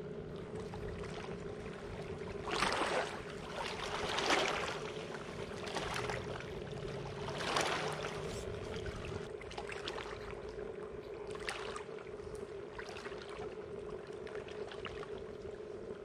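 Water splashing and sloshing a few times, the loudest splashes about four and seven and a half seconds in, over a steady low hum that keeps going.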